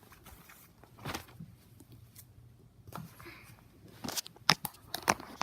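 Toy handling: a hard-plastic toy car and a paper-and-cardboard toy being knocked together and moved about, a few scattered light taps and rustles, then a quick run of sharp clicks and knocks near the end.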